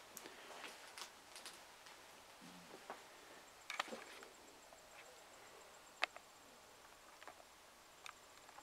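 Sparse faint clicks and light knocks in a quiet room, the sharpest about four and six seconds in, with a faint high-pitched pulsing tone through the second half.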